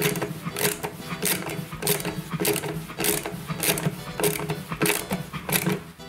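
Ratchet wrench tightening the pulley bolt on a washing-machine drum shaft, clicking in quick even strokes about three times a second. The bolt is drawing the shaft into newly fitted bearings.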